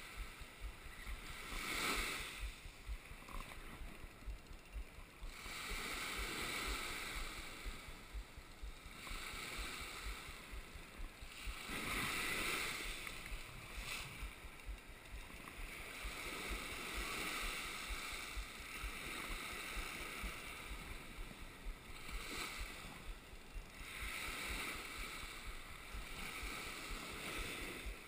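Shallow surf washing in and out, swelling every few seconds, over low knocking handling noise as a spinning reel is cranked to bring in a hooked fish.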